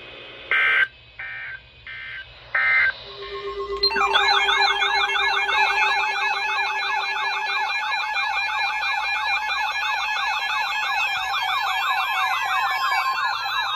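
Electronic emergency alert tones. A few short electronic bursts and a low steady tone lead into several overlapping electronic sirens wavering fast, which begin about four seconds in and start winding down in pitch near the end. This is the attention signal that precedes a severe weather warning broadcast.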